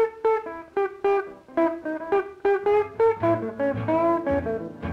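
Instrumental break on a restored 78 rpm blues record: a run of quick single notes, about four a second, each struck sharply and dying away, with a low bass line joining about three seconds in.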